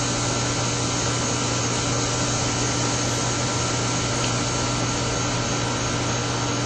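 Steady motor hum with a constant hiss, unchanging throughout.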